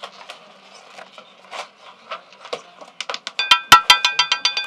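Roulette ball dropping off the wheel's track and clattering over the deflectors and pocket separators. After a few faint clicks, a run of loud, sharp, ringing clicks starts about three seconds in as the ball bounces into the pockets to settle on the winning number.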